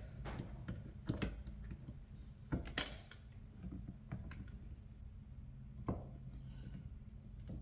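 Faint clicks and creaks of a screwdriver turning small T10 Torx screws out of a car side mirror's outer bezel, a handful of separate ticks a second or so apart.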